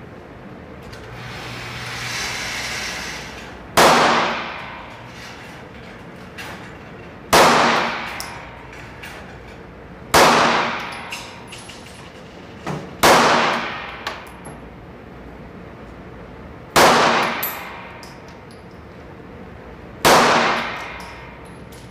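Glock 19 Gen 4 9mm pistol fired six times in slow single shots, about three seconds apart. Each sharp crack rings on in the echo of an indoor firing range.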